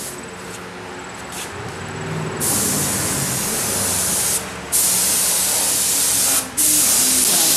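Compressed-air paint spray gun spraying paint, heard as three long bursts of hiss with short breaks between them as the trigger is released and pulled again, starting a couple of seconds in.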